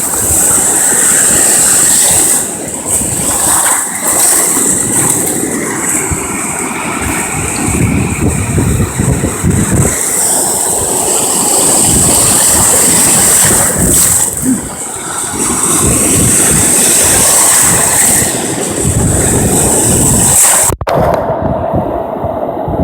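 Wind buffeting the microphone over the wash of surf: a loud, steady rush of noise that swells and eases, and cuts off abruptly near the end.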